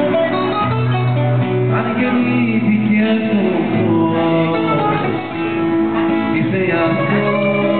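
Greek music playing, with plucked string instruments and singing.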